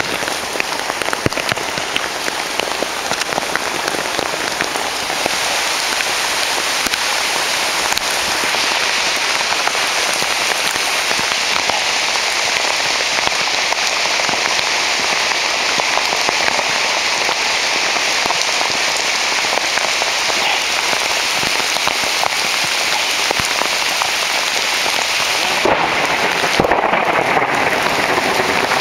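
Heavy rain pelting a tarmac path and the leaves overhead: a steady, dense hiss of drops, briefly muffled about two seconds before the end.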